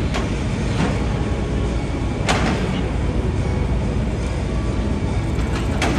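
Busy city street ambience: a steady rumble of traffic and passers-by, with a few sharp clicks, the loudest a little over two seconds in.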